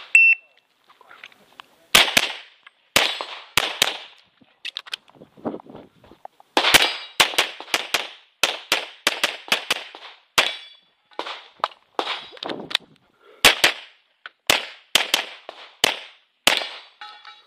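A shot timer's short start beep, then a Tanfoglio Limited Custom Extreme pistol in .40 S&W firing about twenty shots from about two seconds in, in quick strings of two to four with short pauses between.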